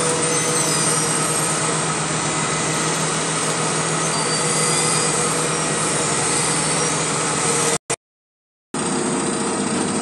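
Atlas Copco asphalt paver's diesel engine running steadily as the machine lays asphalt, a continuous machinery drone. The sound cuts out completely for just under a second near the end, then resumes.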